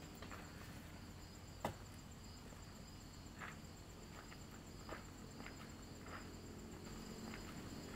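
Faint forest ambience: insects keep up a steady high-pitched chirring, broken by a few soft scattered ticks and knocks, the sharpest about a second and a half in.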